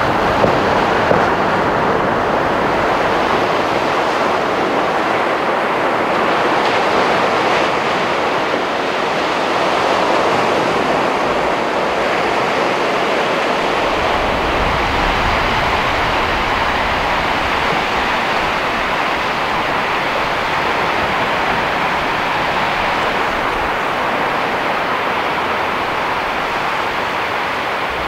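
Ocean surf washing onto a beach: a steady, loud rushing noise, with low wind rumble on the microphone added through the middle part.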